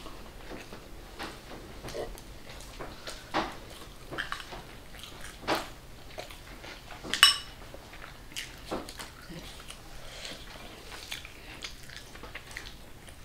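Eating at a metal plate: scattered small taps and clicks of fingers and a spoon on the plate, with chewing. About seven seconds in, one sharp metallic clink rings briefly as the spoon strikes the plate.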